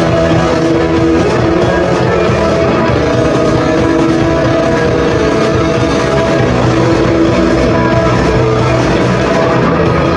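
Live rock band playing a song, with electric guitars and drum kit, loud and dense without a break.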